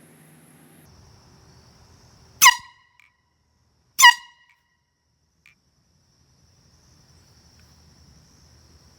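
Ozark Trail air horn sounding two short, sharp blasts about a second and a half apart.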